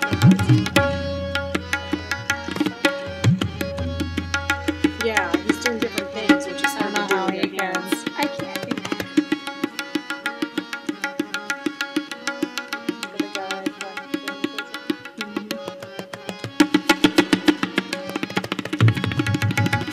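Tabla played in a fast solo: rapid crisp strokes, with deep ringing bass strokes from the larger drum in the first few seconds. A held melodic accompaniment runs underneath, and a louder run of strokes comes near the end.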